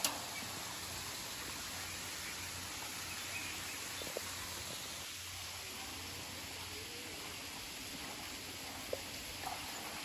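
Steady outdoor hiss of a small rocky stream below, with a few faint clicks.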